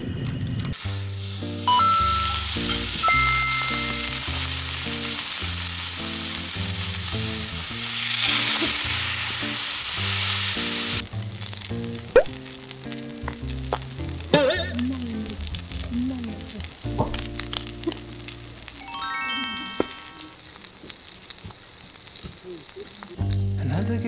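Sausages sizzling in a frying pan over a gas camping burner, loud for about the first ten seconds, then quieter after a sudden drop, with a few clicks of tongs. Background music plays underneath.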